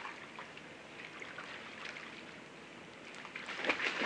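Pool water lapping and trickling quietly. Near the end a swimmer pushes off, and splashing strokes start and grow louder.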